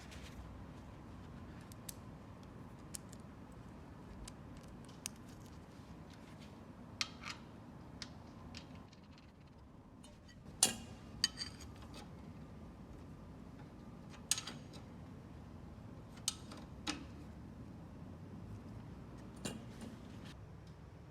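Scattered metallic clicks and clinks of hand tools and small metal parts being handled, about a dozen at irregular intervals, the loudest about halfway through.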